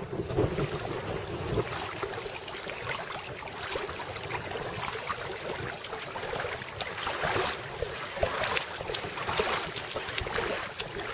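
Wind buffeting the microphone over water sloshing and splashing, with many short irregular splashes and crackles.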